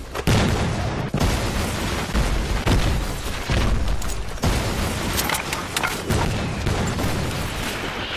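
Battle sound effects from a war film: artillery fire and shell explosions, a steady run of heavy booms about once a second, with scattered gunfire between them.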